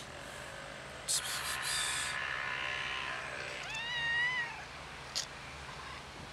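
Black stray cat meowing from hunger: a drawn-out meow, then a louder, higher meow about four seconds in that rises and falls in pitch. A short sharp click follows about a second later.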